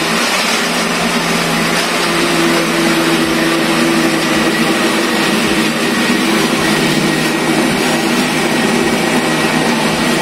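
Morphy Richards countertop jug blender running steadily at full speed, its motor whining as it purées soaked, peeled beans with tomatoes, peppers, onion and water into a thick wet paste.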